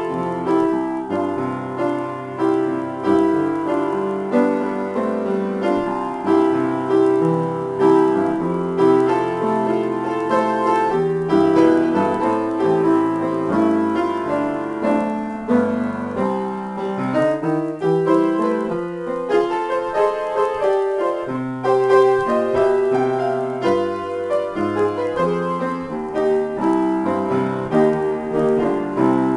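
Solo piano improvisation: a continuous flow of notes and chords, mostly in the middle register, with no breaks.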